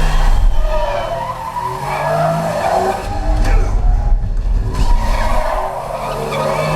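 Movie sound effects of a car being thrown around hard, tyres screeching and skidding over the engine. Played back through a home-theatre speaker system and picked up in the room.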